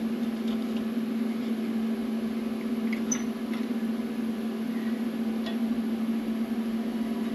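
A steady hum runs throughout, with a few faint metallic clicks as a clamp is tightened on a metal slotting jig.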